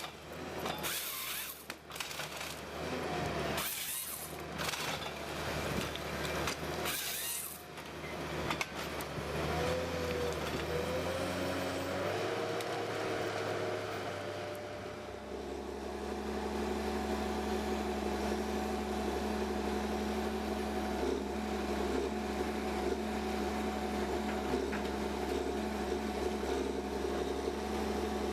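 Machinery running: three short bursts of hiss in the first few seconds, then wavering tones that change pitch, settling about halfway through into a steady engine hum.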